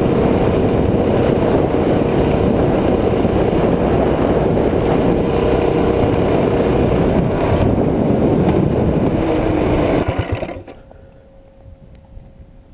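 Tillotson 212 single-cylinder minibike engine, governor removed and fitted with a billet rod and flywheel, running flat out at top speed with wind rushing past. About ten seconds in the throttle is let off and the sound drops away sharply to a low, faint hum.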